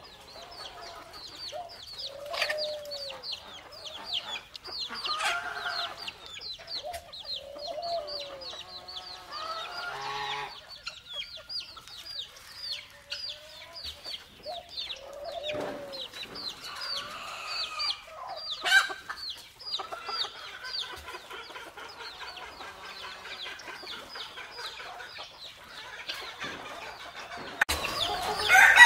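Chickens clucking in a farmyard, with many quick high cheeps throughout and short arching calls every few seconds. A louder, drawn-out animal call starts near the end.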